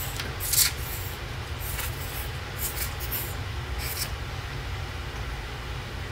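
A steady low background hum, with a few short rustles and scrapes of paper and a craft bottle being handled on a cutting mat. The sharpest of these comes about half a second in, and the rest come in the first four seconds.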